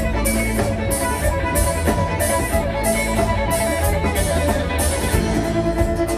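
Live band playing an instrumental passage: strummed acoustic and electric guitars over drums and percussion, with even high-pitched percussion hits keeping a steady beat of about three every two seconds.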